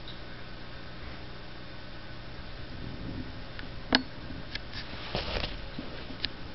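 Steady low room hum, then a sharp click about four seconds in, a few lighter clicks and a brief scuffle as a startled cat scrambles upright on a leather sofa.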